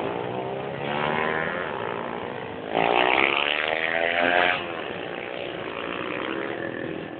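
A motorcycle engine revs twice, the second rev louder, about three seconds in, then drops back to a lower steady run.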